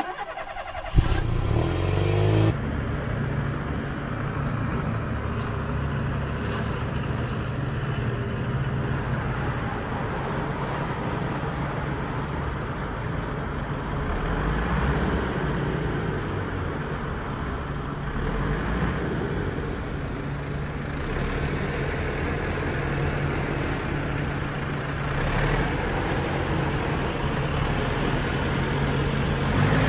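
Homemade miniature tractor's motor running steadily with a low hum as it pulls a tined cultivator through loose soil. A sharp knock about a second in, then an even run.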